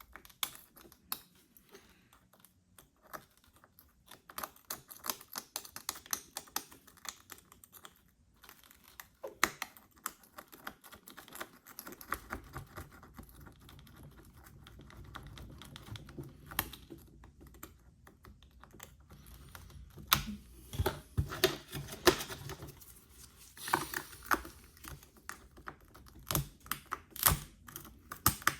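Irregular small clicks and taps of a tool chipping and scraping cracked back glass off an iPhone SE, some in quick clusters. A low steady hum joins in about halfway through.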